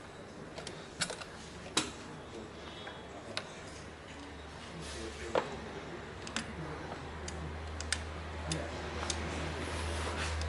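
Irregular light clicks and taps of tools and parts being handled during engine-bay disassembly, about a dozen scattered strikes, with a low hum growing louder in the second half.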